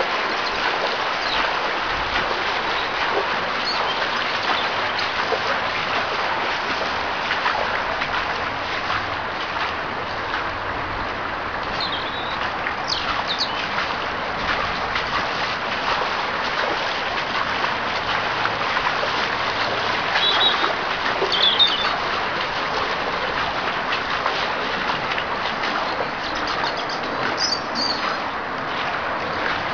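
Balland Brook floodwater running fast over the surface of a lane: a steady rushing of water. A few short, high bird chirps come about twelve seconds in, again around twenty seconds, and near the end.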